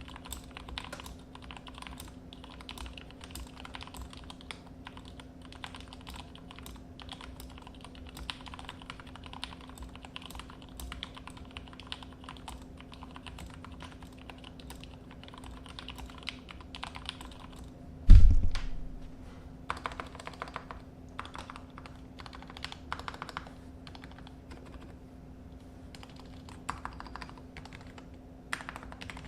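Typing on a custom 60% keyboard with lubed Gateron Yellow linear switches in a plateless 3D-printed case: a steady run of keystrokes over a faint steady hum. About eighteen seconds in, a single loud low thump.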